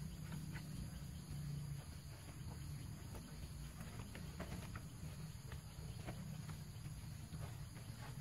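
Hands scraping loose soil and tearing out roots while digging a hole, a string of faint crackles and scrapes over a steady low hum.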